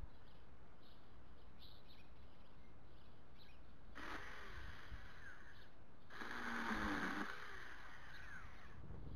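42V cordless electric mini chainsaw running in two short bursts, about four and six seconds in, each starting and stopping sharply; the second burst is longer and louder.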